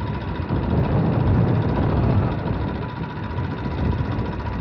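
Vehicle engine running while driving along a road: a steady low rumble.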